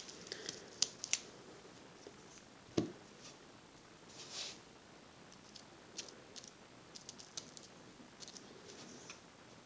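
Faint, scattered small clicks and taps of hotfix rhinestones being picked up with a crystal pick-up tool and set onto a sticky Mylar transfer sheet, with one louder tap about three seconds in and a soft rustle a little after.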